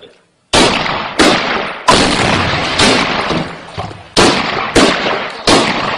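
Close-range heavy weapons fire in a walled urban position: a sudden loud blast about half a second in, then a string of loud sharp shots or blasts, roughly one a second, each with an echoing tail.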